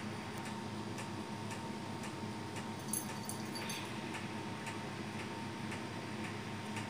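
Faint regular ticking, about two ticks a second, over a steady low hum, with a slightly louder click about three seconds in.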